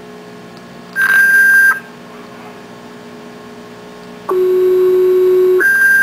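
Fire dispatch alert tones coming over a radio scanner feed: a short steady high tone about a second in, then a steady lower tone held for over a second that steps straight up to the high tone near the end.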